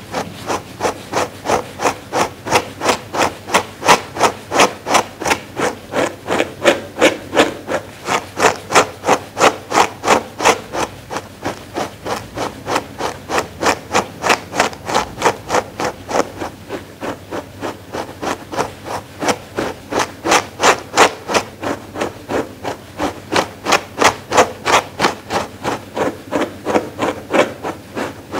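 Dog grooming brush stroked over and over through a fluffy fur pad, a scratchy rubbing stroke about twice a second.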